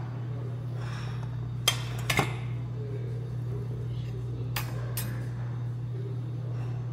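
Cutlery clinking against a soup bowl during a meal: a sharp clink about a second and a half in, two more close together just after, and two lighter ones near five seconds, over a steady low hum.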